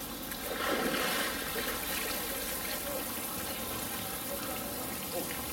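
Water splashing and running off a polar bear as she hauls herself out of a pool onto the concrete ledge.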